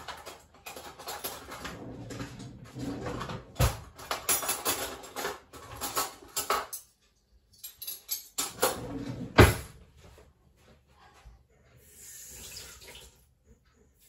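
Metal cutlery clattering in a kitchen, with two sharp knocks, as a tablespoon is fetched. Near the end a tap runs briefly.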